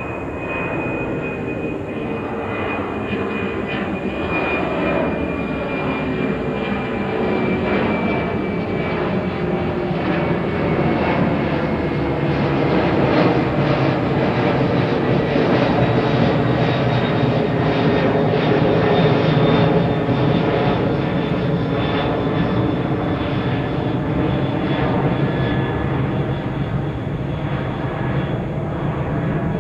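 Boeing 767-300ER's twin jet engines at climb power as the airliner passes overhead just after takeoff: a loud, steady rushing jet noise that builds to a peak about halfway through and then slowly fades, with a high engine whine falling gently in pitch during the first several seconds.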